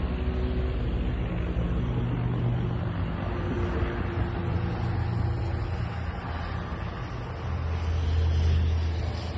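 U-Dig 40 mini digger's engine running under working load, its pitch rising and falling. It gets loudest about a second before the end.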